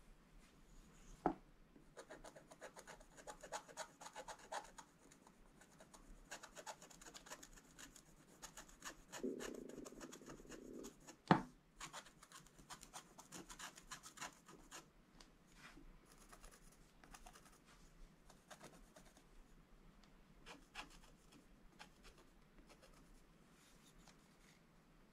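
Wooden stylus scratching the black coating off a scratch-art page in many short, fine strokes. Two sharp knocks stand out, one about a second in and a louder one near the middle.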